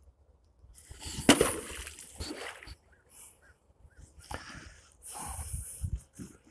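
A homemade well bailer on a rope drops into a river with a sharp splash about a second in, followed by scattered sloshing and rustling as it sinks and is worked in the water.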